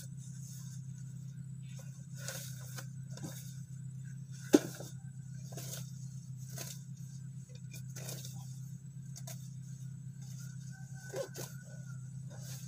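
Grass and weeds being pulled up by hand: rustling, tearing strokes roughly once a second, with one sharp snap about four and a half seconds in, over a steady low hum.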